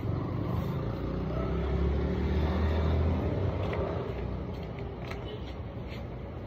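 A motor vehicle's engine running, loudest about two to three seconds in, then fading. A few short scrapes of a broom and dustpan come in the second half.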